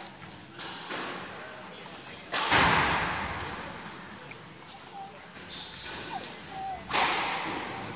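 Squash rally in a walled court: sharp strikes of the ball off rackets and walls, each ringing on in the court's echo, with short high squeaks of shoes on the court floor between them. The loudest hit comes about two and a half seconds in.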